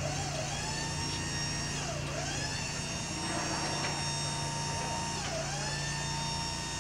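A steady electric motor whine with many overtones, its pitch dipping sharply and climbing back about four times.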